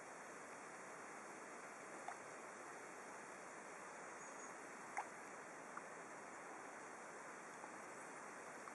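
Near silence: a faint, steady hiss with a few brief faint ticks, the clearest about five seconds in.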